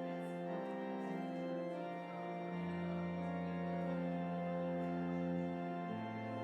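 Organ playing slow, sustained chords. A low bass note comes in about two and a half seconds in and moves to a new note near the end.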